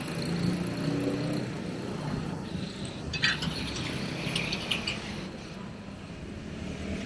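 Night street ambience: a steady low hum of city traffic, with faint voices in the first second or two and a run of short, high clicks about three to five seconds in.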